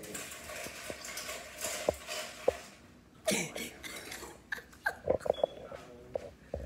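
Faint, indistinct voices in a small room, broken up by scattered clicks and knocks.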